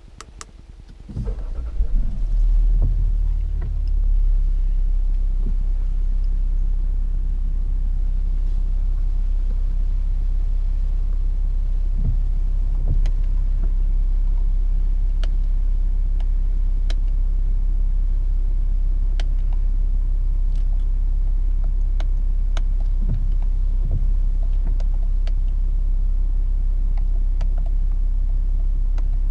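Jaguar F-Pace 30d's 3.0-litre V6 turbodiesel, heard from inside the cabin, starting at the push of the start button about a second in. It surges briefly, then settles at about four seconds into a steady idle, with a few light clicks over it.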